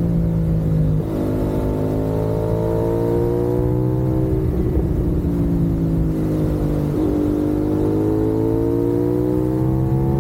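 CFMoto 450SS parallel-twin engine pulling the bike along, its pitch climbing and easing with short breaks about a second in, around four to five seconds and around seven seconds, like gear changes under acceleration. Wind noise rushes over the microphone.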